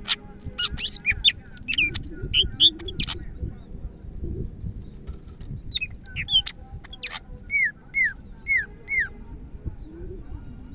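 Cucak ijo (green leafbird) singing a fast, varied song of high chirps and whistles in two bouts with a short pause between them, ending with four short, falling whistles in a row.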